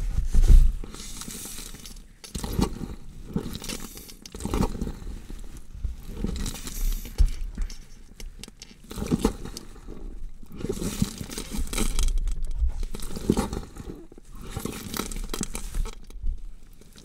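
Irregular rustling and scraping noise in uneven swells about every second, like something rubbed or crinkled close to the microphone.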